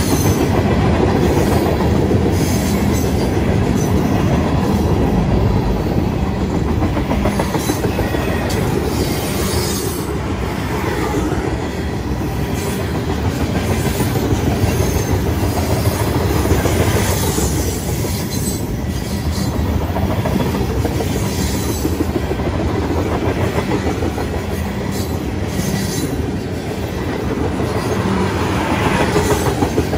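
Freight cars of a manifest train rolling steadily past: the loud, continuous sound of steel wheels running on the rails as open-top hoppers and then tank cars go by.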